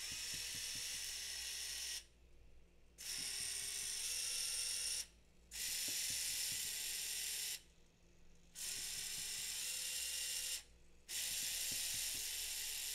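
Small geared drive motors of a hobby robot whirring under a test program: five runs of about two seconds each, split by short pauses, with a whine that steps in pitch within each run as the motors are driven back and forth.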